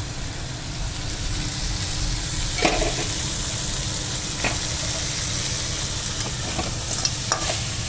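Crab pieces frying in oil in a metal kadai, a steady sizzle, with a metal spatula stirring and scraping the pan and clicking against it a few times.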